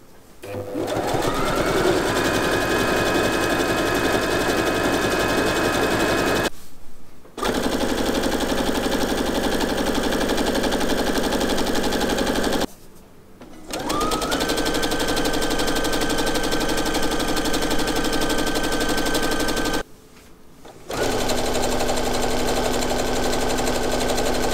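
Brother household sewing machines stitching through four layers of dense Gore-Tex-like fabric in four separate runs, with short breaks between them. Each run starts with a brief rising whine as the motor speeds up, then holds a steady stitching speed. The machines go through smoothly, without the needle being gripped or the motor labouring.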